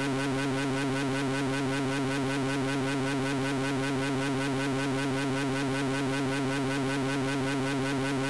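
Steady synthesized electronic drone, a buzzing stack of tones with a fast, regular warble pulsing several times a second, unchanging throughout.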